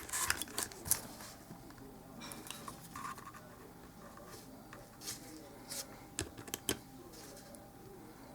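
Small hand-work sounds at an electronics workbench: light scratching and a scatter of sharp clicks and taps as tools and components are handled while capacitors are checked, busiest in the first second and again about five to seven seconds in.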